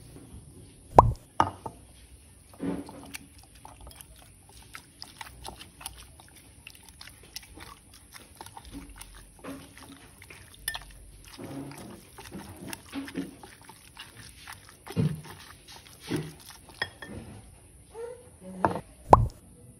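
Hand food-prep sounds: oyster mushrooms being torn into strips, then tofu being mashed in a glass bowl with a wire hand masher. Soft squishing and scattered clicks run throughout, broken by several sharp knocks about a second in and again near the end.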